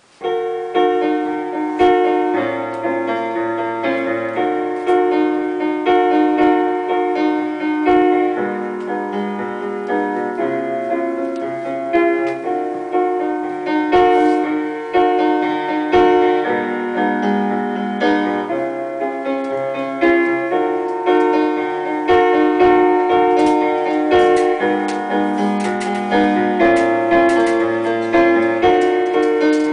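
Piano playing a gentle, repeating accompaniment of chords and melody, starting suddenly: the instrumental introduction to a song.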